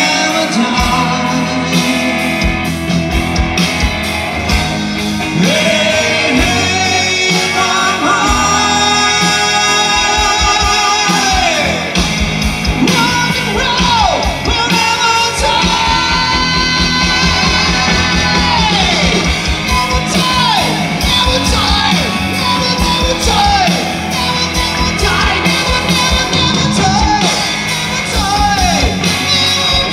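Live rock band playing loud through a PA: a male lead vocal over electric and acoustic guitars, with drums keeping a steady beat.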